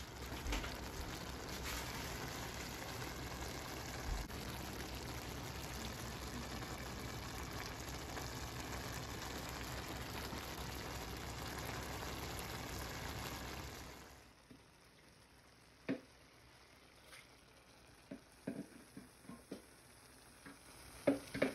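Chopped steak, onions and green peppers sizzling steadily in a skillet as they simmer. About fourteen seconds in, the sizzle cuts off abruptly, leaving a quieter stretch with scattered small clicks and pops.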